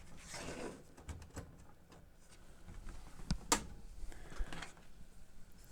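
Light clicks, taps and scrapes of the plastic faceplate and parts of a Sony TC-K61 cassette deck being handled and pried during disassembly, with a sharper click about three and a half seconds in.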